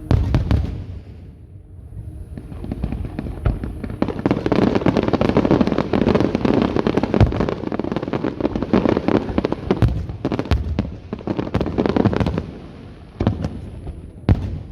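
Fireworks display: a loud bang at the start, then a dense barrage of shells bursting and crackling for about ten seconds, followed by two more separate bangs near the end.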